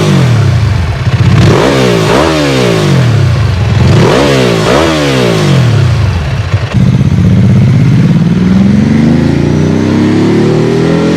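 Ducati 999 superbike's L-twin engine revved in about five sharp blips, then from about seven seconds in pulling one long, steady rise in revs.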